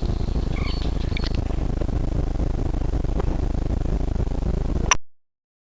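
Steady low outdoor rumble with a few faint high chirps in the first second and a half; a sharp click about five seconds in, then the sound cuts off to silence.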